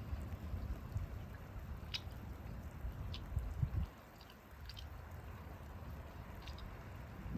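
Rain during a thunderstorm: scattered drops ticking now and then over a steady low rumble that swells briefly a little over three seconds in.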